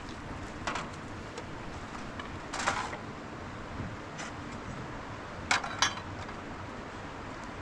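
A few short clinks and scrapes of a metal bowl against a metal tray as it is handled, the loudest a quick pair about five and a half seconds in, over a steady background hiss.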